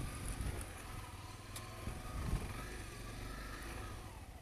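Motorcycle engine running while the bike rolls along slowly, a steady low rumble.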